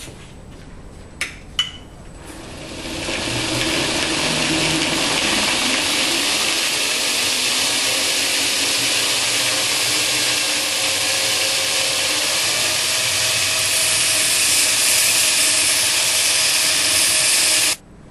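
Two clicks, then a belt grinder grinding a forged steel knife blade against its abrasive belt: a loud, steady hiss that builds over about a second and cuts off suddenly near the end.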